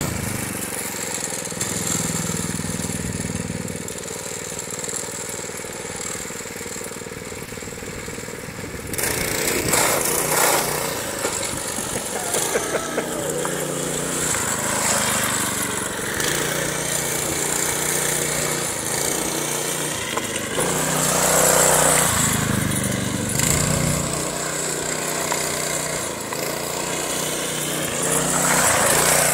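A go-kart's small engine running and revving up and down as the kart drives along, with louder surges about ten seconds in, a little after twenty seconds, and near the end.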